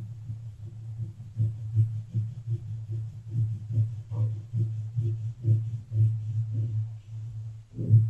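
Crayon rubbed back and forth on paper over a wooden drawing board as a large area is coloured in. It is heard as a run of dull, low rubbing thumps, about two or three strokes a second.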